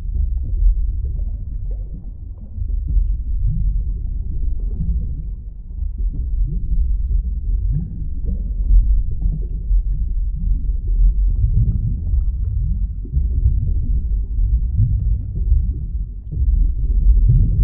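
Underwater ambience sound effect: a deep, steady rumble with many short rising gurgles.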